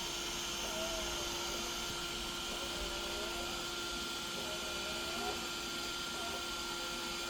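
Hankyung-hee robot window cleaner running, its suction fan motor giving a steady whirring hum with a constant hiss.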